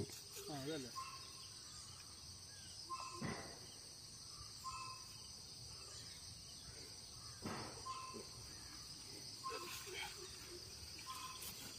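Steady high chirring of insects, with short clear chirps recurring every second or two and a couple of faint brief rustles.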